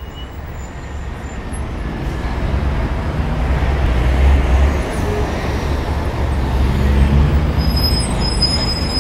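A steady rushing noise with a deep rumble underneath, swelling gradually over the first few seconds. A few faint, thin high tones come in near the end.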